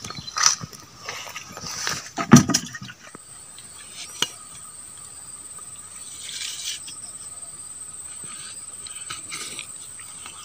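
A steady, high-pitched insect drone that starts about three seconds in and holds to the end. Before it, a couple of sharp knocks, the loudest about two seconds in.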